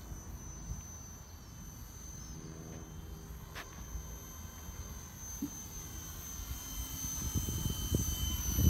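Blade 230S electric RC helicopter in flight: a steady high whine from its motor and rotor over a low rumble, both growing louder near the end as it comes closer.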